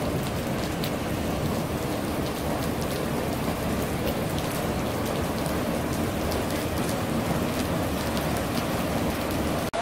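Floodwater gushing up out of a street drain and rushing across a flooded road: a steady rush of water with scattered small splashes, cutting off abruptly near the end.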